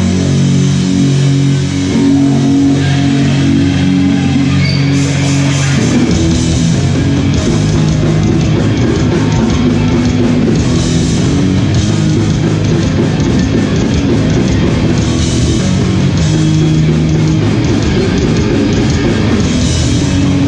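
Hardcore punk band playing live at full volume: distorted electric guitar chords ring out, then drums with crashing cymbals and the full band come in about five to six seconds in and keep going.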